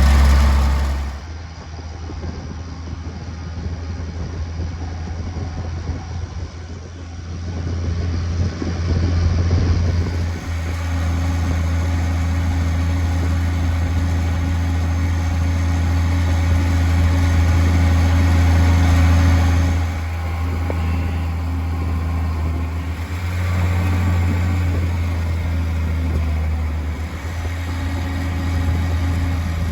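A vehicle engine running steadily with a low drone. It grows louder about eight seconds in, eases off around twenty seconds, then picks up again a few seconds later.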